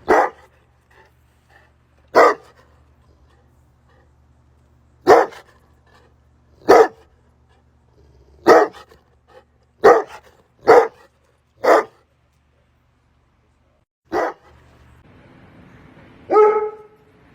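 Bullmastiff barking: about ten single barks spaced one to three seconds apart, three of them in quicker succession around the middle. The last bark is longer, with a clearer pitch.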